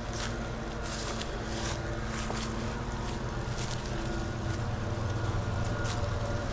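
Wind buffeting the microphone as a low rumble that swells past the middle, with short crunches of footsteps on the trail every half second or so.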